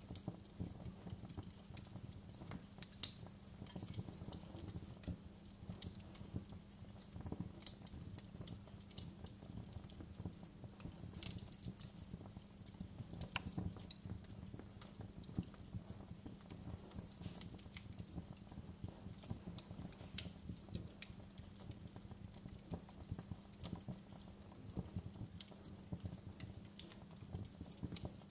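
Wood fire crackling in a fireplace: irregular snaps and pops over a low steady rumble, with one sharper pop about three seconds in.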